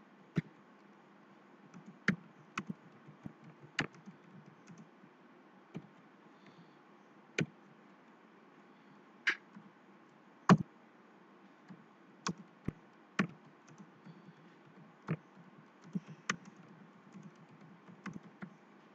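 Computer keyboard being typed on: scattered, irregular keystroke clicks, roughly one every second with some in quick pairs, over a faint steady hiss.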